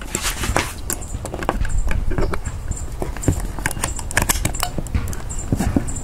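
Irregular clicks and knocks as a car-charger plug is pushed and worked into a 12-volt cigarette-lighter socket splitter, and the hardware is handled on a wooden board.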